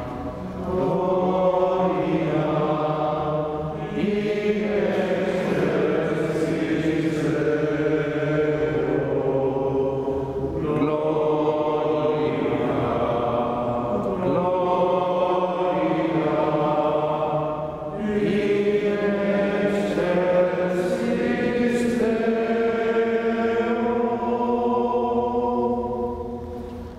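A group of voices singing a slow liturgical chant together, in phrases a few seconds long with short breaths between them; it ends near the close.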